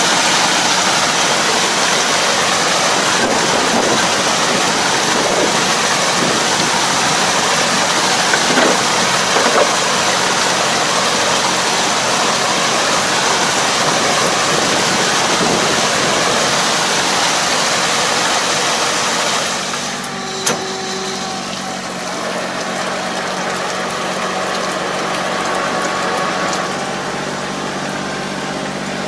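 Tractor engine running steadily while a Kobashi harrow churns water and mud in a flooded paddy for puddling, the churning giving a loud, even hiss like rain. About twenty seconds in the hiss drops away, leaving mostly the engine's steady hum.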